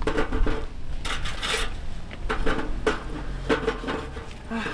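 Irregular rubbing and scraping of objects being handled, with a few light knocks.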